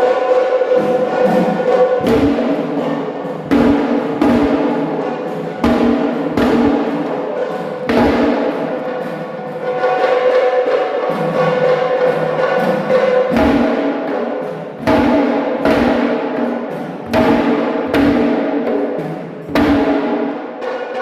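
A deep drum struck in an uneven rhythm, a beat every second or two with some in quick pairs, over a steady ringing drone held on one pitch.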